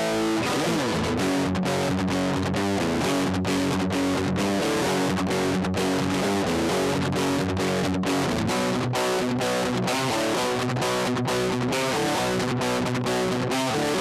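Stratocaster-style electric guitar played through a Zoom GFX-8 multi-effects processor: a steady run of picked notes with a processed, effects-laden tone.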